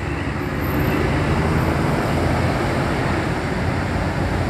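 Large buses driving past close by: a steady deep engine rumble mixed with road and tyre noise, growing a little louder about half a second in.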